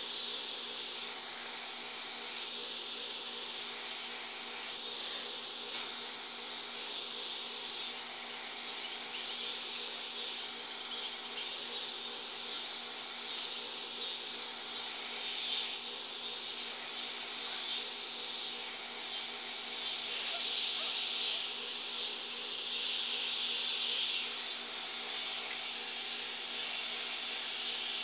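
Steady high-pitched insect chorus, with two sharp clicks about five and six seconds in.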